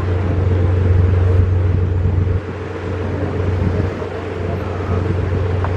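The tour boat's engine running with a steady low drone while under way. The level dips briefly about halfway through.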